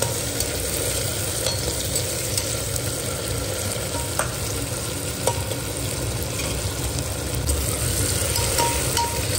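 Onions, green chillies, diced potatoes and tomatoes frying in oil in a pan with a steady sizzle, as a spoon stirs them. A couple of light clicks come near the middle.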